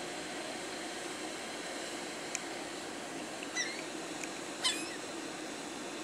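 Gulls giving two short, high, squeaky calls, about three and a half and four and a half seconds in, over a steady background hum. A single sharp click comes a little before the first call.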